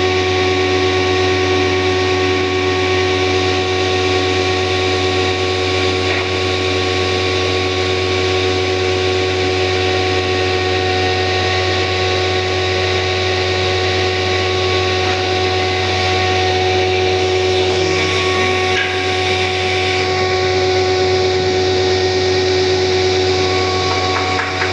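An electric power tool's motor running steadily at constant speed, with a continuous hum.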